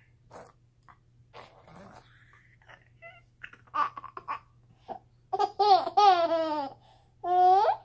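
Baby and adult laughing and vocalising playfully. A few short sounds come about four seconds in, then a long wavering high-pitched laugh that falls in pitch, and a rising high call near the end.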